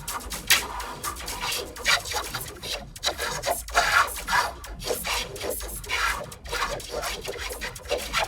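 A cartoon character's voice clips, run through a harsh noise-distortion effect, come out as choppy, hissing bursts in which the words cannot be made out.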